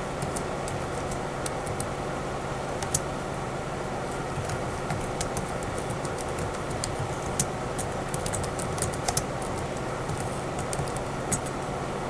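Irregular light clicks of laptop keyboard keys being typed, over a steady low hum and hiss.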